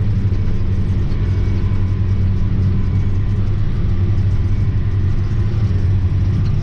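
A John Deere 9620T track tractor's 12.5-litre turbocharged diesel running steadily under load while pulling a disk, heard from inside the cab as an even, low drone.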